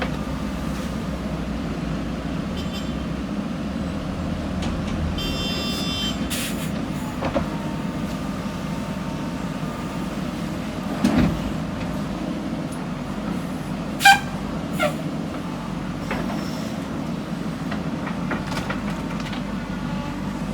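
Diesel engine of a JCB backhoe loader running steadily while it works, with a brief high squeal about a quarter of the way in and a few sharp metallic clanks, the loudest about two-thirds through.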